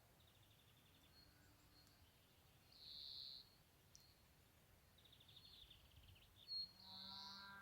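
Faint bird calls: a few short, rapid trills and brief high whistled notes. Near the end a cow starts to moo.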